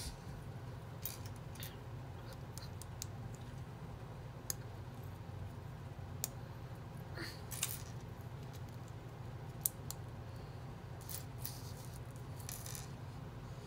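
Small plastic building bricks clicking and clattering as they are picked up, handled and pressed together, in scattered irregular clicks over a steady low hum.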